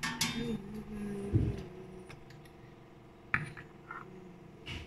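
Stainless-steel idli steamer being handled, its idli plate gripped with metal tongs: a few light metal clinks and knocks, the loudest a dull thump about a second and a half in.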